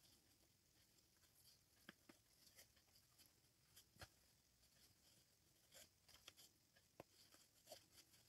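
Faint, scattered rustles and small clicks of thick yarn being handled and drawn through crochet stitches as a yarn tail is woven in out of sight.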